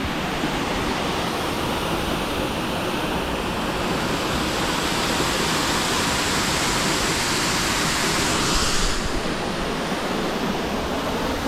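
Shannon Falls waterfall: a steady, even rush of falling water, briefly a little brighter and hissier about eight seconds in.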